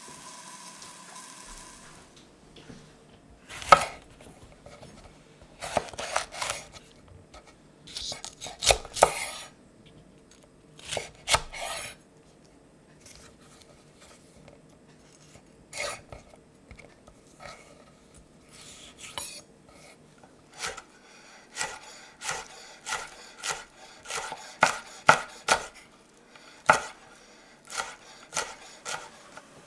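Chef's knife cutting a red chilli on a wooden cutting board: scattered single cuts and taps at first, then a quick run of fine chopping, about two to three chops a second, in the last third.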